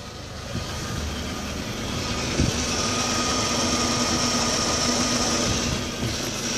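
Audi A4 B6 1.8T turbocharged four-cylinder engine idling, with a steady high whine coming in a couple of seconds in and a single light thump. The owner calls the idle rough since a new water pump and timing belt were fitted.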